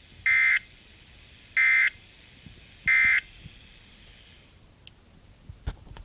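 SAME digital end-of-message bursts from a Weatheradio Canada transmission, heard through a Baofeng UV-5R handheld radio's speaker. Three short, identical buzzy data chirps about 1.3 s apart mark the end of the required weekly test. Faint receiver hiss under them stops a little later.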